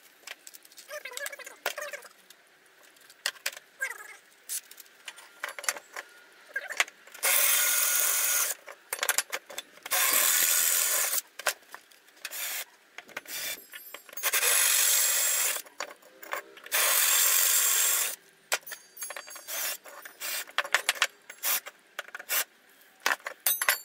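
Metal parts and hand tools clicking and clattering on a workbench, with four loud bursts of steady hiss-like noise, each a second or so long, spread through the middle.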